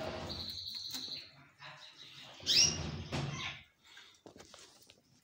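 Belgian canaries singing: a fast pulsed trill in the first second, then a loud short call with a sharp falling pitch about two and a half seconds in.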